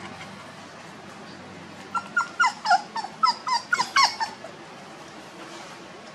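Puppy whimpering: a quick run of about ten short, high cries, each falling in pitch, over about two seconds in the middle.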